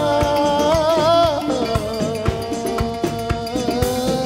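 Live Sudanese song: a male singer holds a long, wavering note over the band, letting it go about a second and a half in, and the band carries on alone over a steady drum beat.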